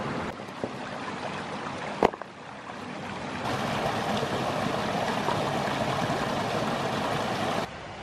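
Rushing water of a shallow mountain stream, growing louder and fuller for about four seconds from midway, as a small waterfall pours over rocks, then dropping back abruptly near the end. A single sharp knock about two seconds in.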